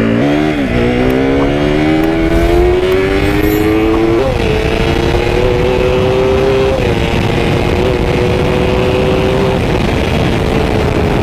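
KTM RC 200's single-cylinder engine pulling under acceleration: its note climbs for about four seconds, shifts up a gear, then holds a steady cruising pitch, with another small shift about seven seconds in and an easing off near the end. Steady wind rush on the helmet microphone runs under it.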